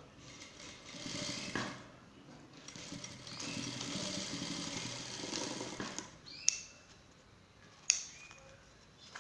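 Industrial sewing machine stitching in two runs of a couple of seconds each, followed by two sharp snips of scissors cutting the thread.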